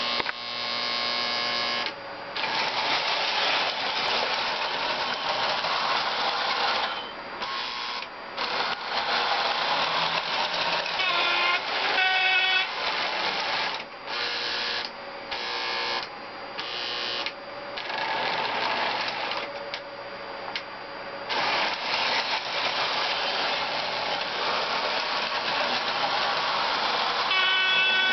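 Lionel 218 Alco A-A diesel units running on three-rail O-gauge track, the motor and wheels making a steady loud running noise that drops out briefly several times. A horn sounds about twelve seconds in and again for a second or so near the end.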